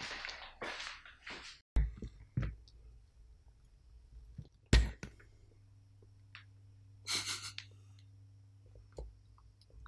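Knocks and clicks of a plastic jelly mould and its snap-in cap being handled, one knock near the middle louder than the rest. A steady low hum runs under it from about halfway, and a short noisy burst comes about seven seconds in.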